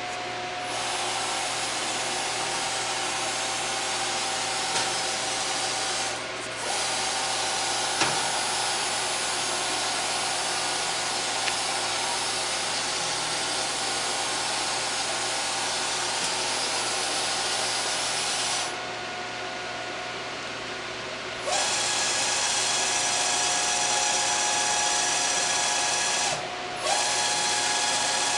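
Fryer VB-100 CNC mill's table traversing under its servo axis drive: a steady motor whine with hiss. It stops briefly about six seconds in, pauses for about three seconds about two-thirds through, and stops briefly again near the end.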